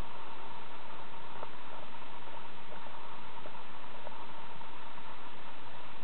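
Steady hiss with a faint high whine and a few soft ticks.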